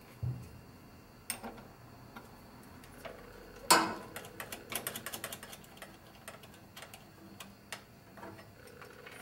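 Metal clicks and taps of a wrench working the nut on a car battery terminal while a wire's ring terminal is fitted. One louder clank comes about four seconds in, followed by a run of quick ticks for about a second and then scattered ticks.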